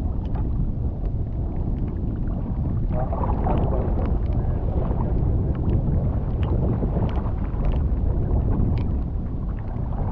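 Steady rush of wind on the microphone and choppy sea around a small open boat in heavy rain, with scattered light ticks all through.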